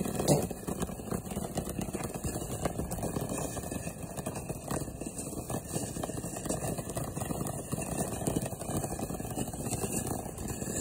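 Ground fountain fireworks spraying sparks with a dense, steady crackle, and one louder pop just after the start.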